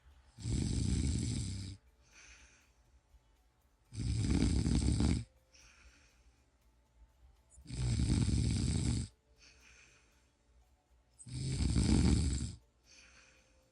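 A person snoring in a slow, even rhythm: four loud snores, each about a second and a half long, about every three and a half seconds, with a much fainter breath between each.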